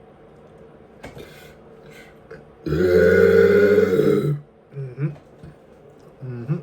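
A man's long, loud burp, held at a steady low pitch for about a second and a half, starting a little under three seconds in. It is followed by two short low throat sounds.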